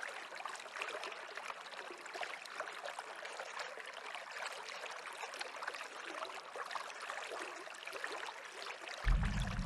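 Stream water running and babbling steadily. Just before the end, a deep low rumble cuts in suddenly.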